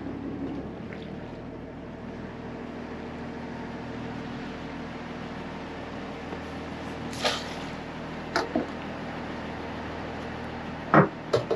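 Fishing boat's engine idling with a steady hum. A few brief sharp sounds break in, the loudest near the end.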